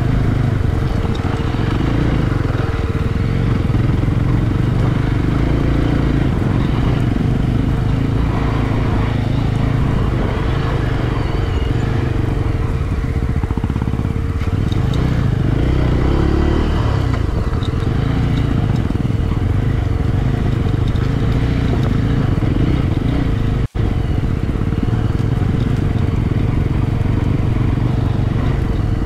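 Single-cylinder motorcycle engine running steadily while the bike is ridden. The sound cuts out for an instant about three-quarters of the way through.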